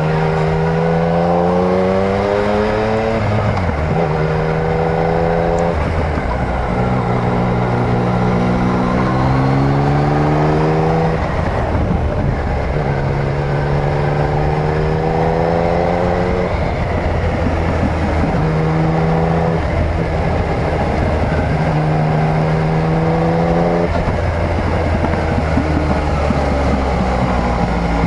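Yamaha MT-09's inline-three engine under way, its pitch repeatedly rising as the throttle opens and dropping back at gear changes or when easing off.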